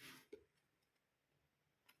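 Faint handling of tarot cards: a short soft swish and a light tap about a third of a second in, then near silence with a faint click near the end.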